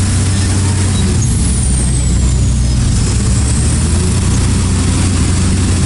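Heavy truck engine running steadily with a low, even drone.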